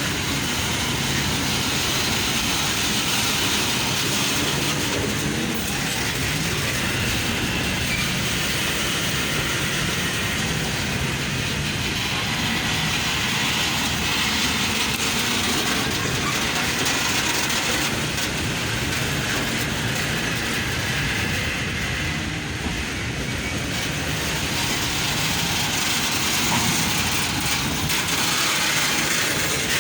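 Freight train of magnesite wagons running along the rails, with a steady rumble of wheels and wagons.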